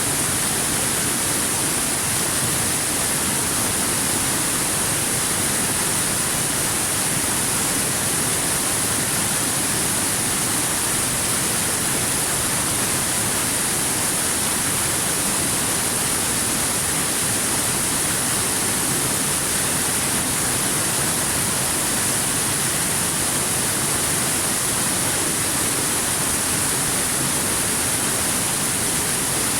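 Waterfall: water falling and rushing in a steady, unbroken hiss, brightest in the high end, with no change in level.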